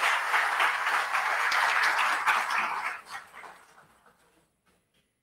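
Audience applauding at the end of a speech, fading away about three seconds in and dying out soon after.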